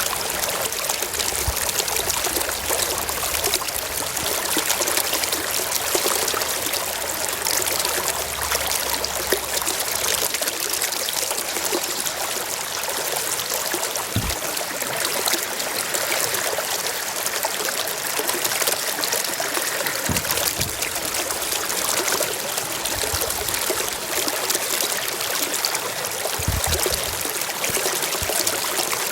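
Water flowing steadily: an even hiss of running water with no break, plus a few faint low bumps.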